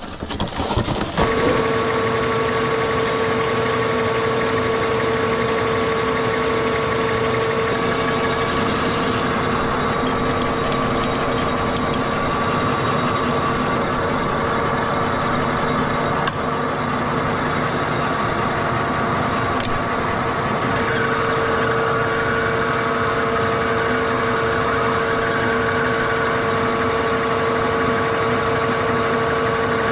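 Turret lathe running under power while rough-turning a spindle, a steady machine drone with a constant gearbox whine that starts about a second in.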